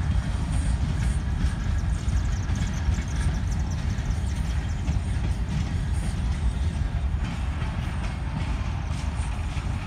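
Freight train cars rolling past in a steady rumble.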